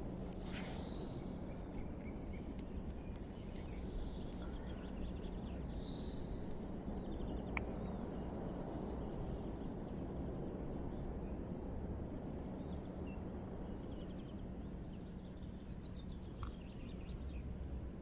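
Small birds chirping three times in the first seven seconds over a steady low rush of wind and river water, with a couple of sharp clicks.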